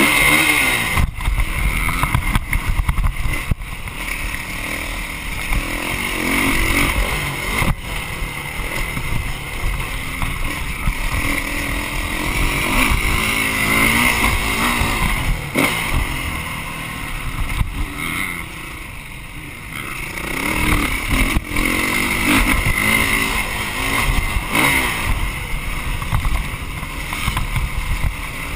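Dirt bike engine being ridden hard, its pitch rising and falling again and again as the throttle opens and closes, with a few sharp knocks from the bike over bumps.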